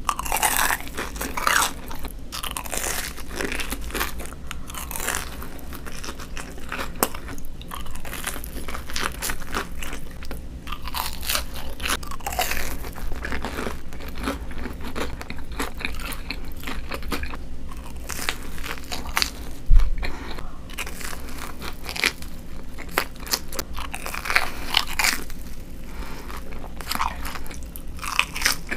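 Close-up crunchy bites into breaded Korean corn dogs, each crisp crackle of the fried coating followed by chewing, repeated throughout. A single low thump about two-thirds of the way through is the loudest sound.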